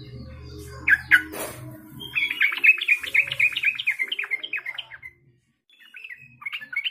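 Yellow-vented bulbul singing: a couple of notes, then a long rapid chattering run of repeated notes lasting about three seconds, and a few short notes again near the end.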